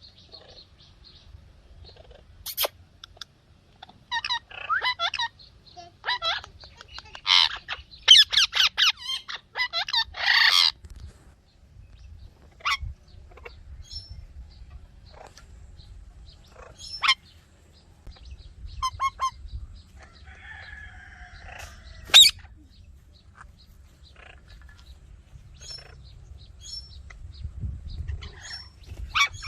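Indian ringneck parakeet chirping and squawking in irregular bursts, with a run of rapid harsh calls about seven to eleven seconds in and single sharp calls scattered after that.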